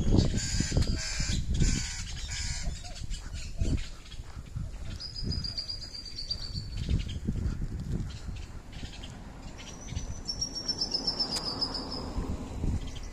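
Birds calling: a run of harsh, rapid calls in the first few seconds, then high thin trills twice, once near the middle and once near the end. Under them runs a low, irregular thumping rumble on the microphone.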